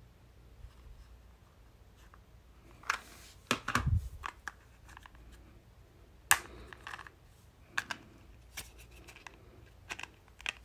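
Clear hard-plastic AAA battery case being handled and opened, with batteries pulled from its slots: scattered sharp plastic clicks and light knocks, with a dull thump about four seconds in and the sharpest click a couple of seconds later.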